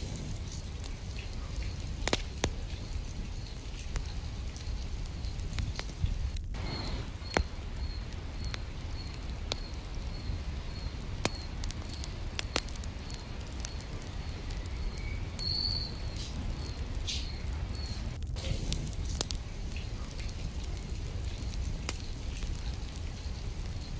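Steady rain with scattered sharp drip and patter clicks. Through the middle a faint high chirp repeats about twice a second.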